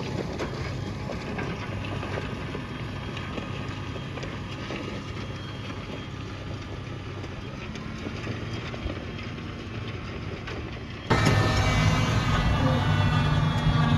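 Tractor engine working under load while pulling a six-furrow plough, at first fainter and steady. About eleven seconds in it becomes suddenly much louder, with a strong engine hum and a whine above it.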